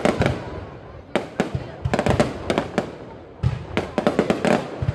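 Fireworks bursting overhead in rapid volleys of sharp bangs, several reports in quick succession, then short pauses before the next cluster.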